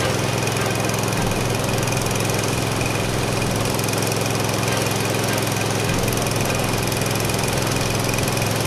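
Small gasoline engine on a floating gold dredge running steadily at one speed, driving the dredge's pump, over the rush of river water.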